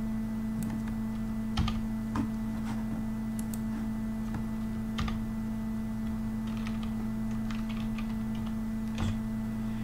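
Typing on a computer keyboard: scattered, irregular key clicks, a few of them louder, over a steady low electrical hum.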